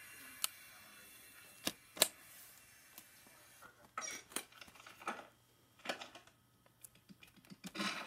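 Plastic VHS clamshell cases being handled and set down, giving scattered sharp clicks and taps, several close together about four seconds in and again near the end.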